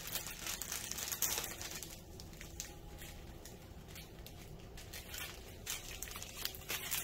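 Small plastic bags of diamond painting drills crinkling and rustling quietly and irregularly as they are handled and sorted.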